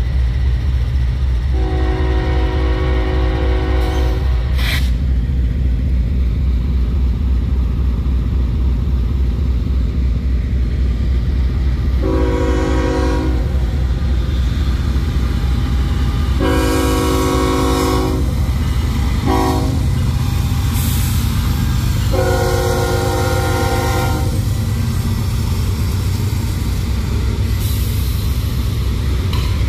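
A diesel locomotive's multi-chime air horn sounds a first long blast, then the grade-crossing signal of long, long, short, long as the train approaches the crossing. A steady low diesel rumble runs underneath.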